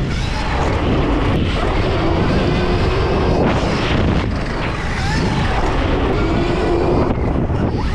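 Stark VARG electric dirt bike on the move: a loud rush of wind buffeting the helmet-mounted camera, with the electric motor's faint whine rising and falling as the throttle changes.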